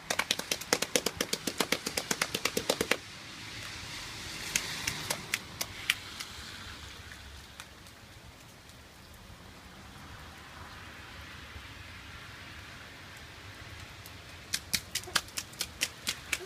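Bare feet slapping quickly on wet concrete paving: a rapid run of sharp slaps for about three seconds, then a quieter stretch, then another run of slaps near the end.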